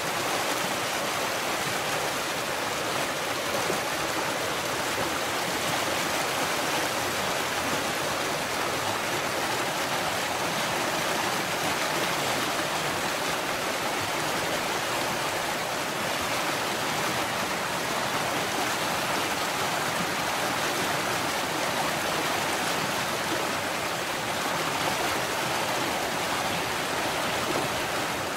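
Mountain stream running heavily, a steady rushing of water over rocks with no breaks.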